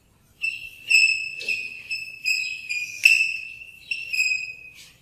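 Chalk squeaking on a blackboard while words are written: a string of short, high-pitched squeals with brief gaps between strokes, and a few sharp taps of the chalk.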